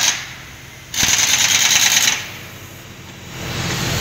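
Pneumatic impact wrench hammering on the wheel nuts of a large mining haul truck: a brief burst right at the start and a burst of about a second a second in, with rapid rattling blows. A low rumble builds near the end.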